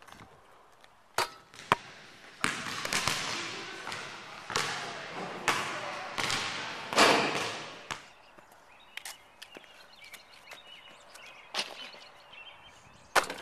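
A basketball thudding against the ground and hoop a few times, with several loud swells of rushing noise through the middle, the loudest about two thirds of the way in.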